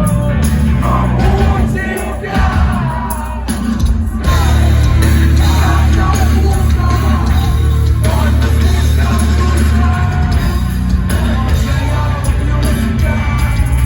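Live rock band playing loud, with singing and shouts over it; a heavy bass-and-drums part comes in about four seconds in.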